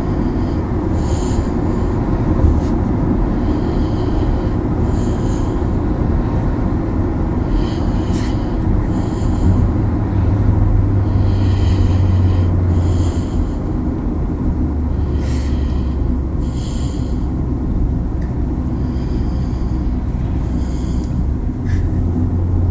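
A man snoring while asleep in a car: slow, regular snoring breaths about every four seconds, over the steady low drone of the car.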